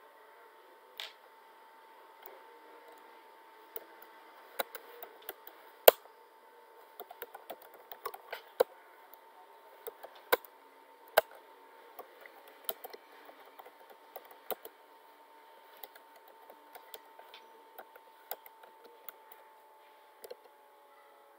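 Typing on a computer keyboard: irregular key clicks in short runs with pauses between, over a faint steady tone.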